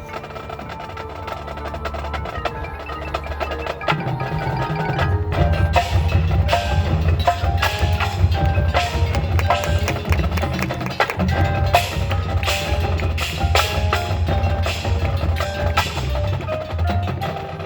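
Marching band music in a percussion-heavy passage: sharp struck hits and ringing mallet notes over a low sustained bass, growing louder about four seconds in.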